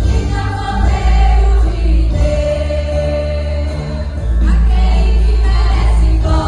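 A choir singing a gospel song over instrumental backing with a heavy bass line.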